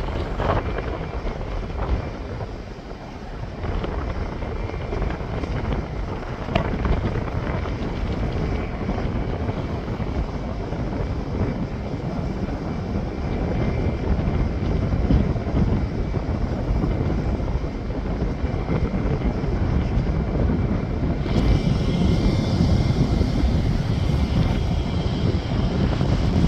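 Aircraft engine noise mixed with wind on the microphone, a steady rush that slowly grows louder, loudest near the end.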